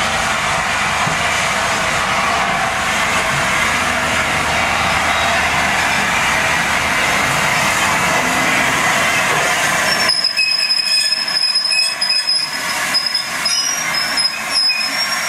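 LNER A4 steam locomotive 60007 Sir Nigel Gresley moving slowly alongside the platform, with a loud, steady hiss of steam. About ten seconds in, the hiss stops abruptly and a high-pitched wheel squeal comes and goes.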